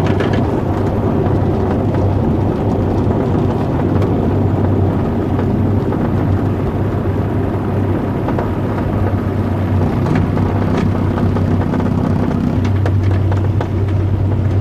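The engine of a Samba XXL ultralight aircraft runs steadily, heard from inside the cockpit. Its tone shifts briefly about ten seconds in and settles back a couple of seconds later.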